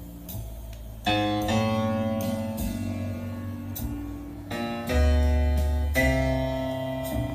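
Recorded piano music, with chords struck several times and a strong deep bass note about five seconds in, playing over Tannoy HDP 385 dual-concentric loudspeakers driven by an Accuphase A50 amplifier.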